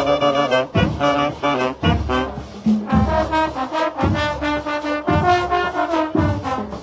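A brass band playing a tune: brass instruments carrying the melody over a heavy low beat roughly once a second.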